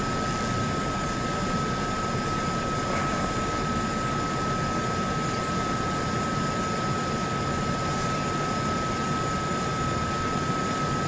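Room tone: a steady hiss with a constant high-pitched whine, and no other event.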